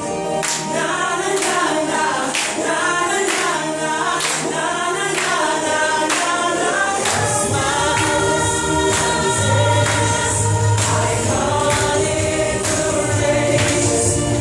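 Mixed vocal group singing a pop song in close harmony over a sharp beat about every three-quarters of a second. A deep bass part comes in about halfway through.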